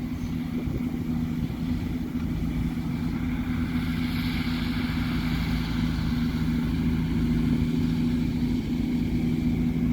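Farm tractor engine running steadily at working speed, a constant low hum, with wind rumbling on the microphone.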